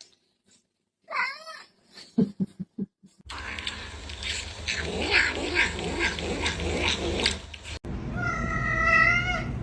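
Domestic cats meowing across several short clips: a brief meow about a second in, and a long drawn-out, steady-pitched yowl starting near the end. Between them comes a stretch of quick, evenly repeated noisy sounds over a low background hum.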